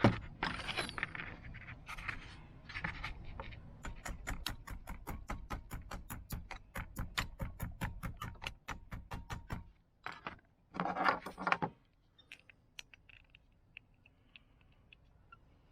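Small metal carburetor parts being worked by hand: a few scrapes, then a steady run of quick sharp clicks, about five a second, for several seconds. A short louder scrape follows about eleven seconds in, then faint scattered ticks.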